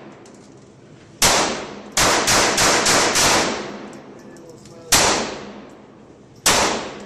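Ruger Mk II .22 LR semi-automatic pistol firing about eight sharp shots, each ringing out briefly. There is a single shot, then a rapid string of about five at roughly three a second, then two more spaced about a second and a half apart.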